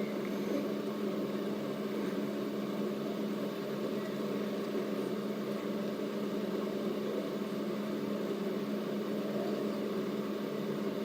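Steady low mechanical hum with no change in pitch or loudness.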